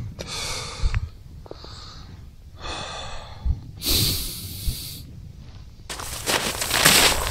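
A person breathing heavily, with four loud puffs of breath about a second apart. Near the end comes a longer, louder stretch of rustling noise.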